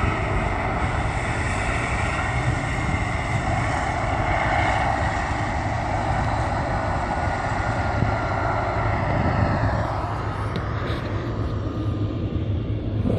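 Boeing 777 freighter's GE90 jet engines at takeoff thrust: a steady jet noise with a whining tone in it as the aircraft rolls down the runway and rotates. The noise fades after about ten seconds, and there is some camera-handling noise near the end.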